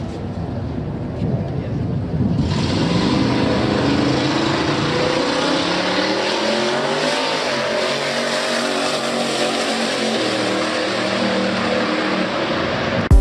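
Drag-racing pickup truck's engine rumbling at the start line, then launching at full throttle about two seconds in and running hard down the strip, its pitch climbing and dropping back several times as it shifts through the gears.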